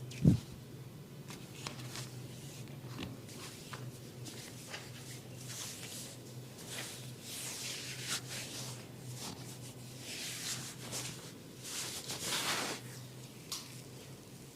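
Hands rubbing and stroking over skin and hair in a massage: soft, irregular swishing strokes, busiest in the second half, over a steady low hum. A single low thump comes just after the start.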